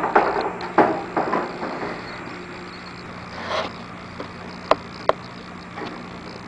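Knocks and clicks of hardware being handled while an LCD console drawer bracket is fitted: a quick cluster in the first second and a half, then two sharp clicks near the end, over a steady low hum.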